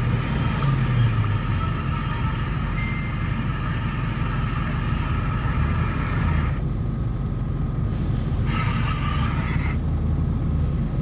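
Old jeep's engine running steadily with a low rumble; the higher hiss drops away twice in the second half.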